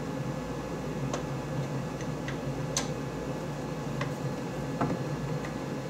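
Light clicks and taps of hand tools and bolts being handled while a UTV door panel is fitted, about six of them, irregularly spaced, over a steady low hum.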